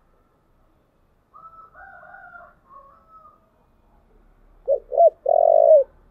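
Spotted dove cooing near the end: two short coos, then a longer rolling coo that drops in pitch at its end. Before it, a fainter, drawn-out call sounds in the background.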